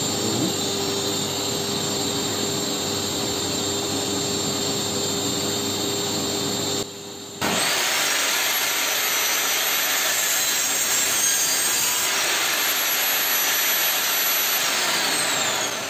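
Modern M608 benchtop table saw with its stock blade: a steady machine hum at first, then after a brief drop the saw spins up about halfway through. It runs while a piece of 15 mm plywood is cross-cut against the miter gauge, and is switched off near the end, its motor whine falling as it winds down.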